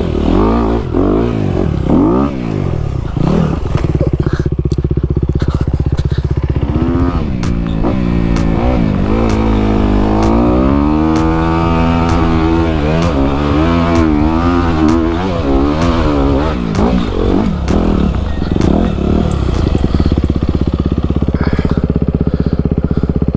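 Honda CRF250 four-stroke single-cylinder dirt bike engine under way on a rocky trail, its pitch rising and falling with the throttle, the swings heaviest in the middle. Scattered clicks and clatter, typical of stones and the bike's chassis knocking over rough ground.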